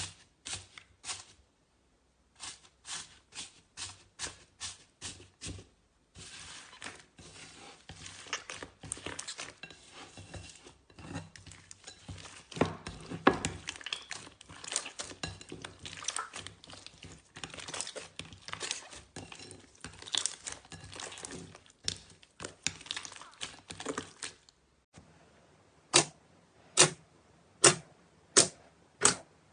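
Slime being handled for ASMR. First comes a run of crisp clicks at about three a second. Then a long stretch of dense crackling and popping as the slime is pressed and squeezed. Near the end come a few loud, separate pops about a second apart.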